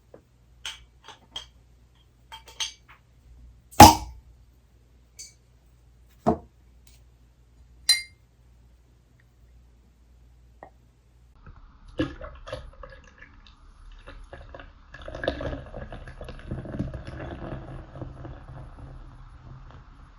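Glass clinks and knocks, the loudest a single sharp clack about four seconds in. Then beer is poured into a glass, a continuous fizzing, gurgling pour from about twelve seconds on.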